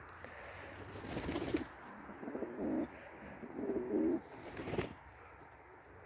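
Domestic pigeons cooing: about four low coos, roughly a second apart.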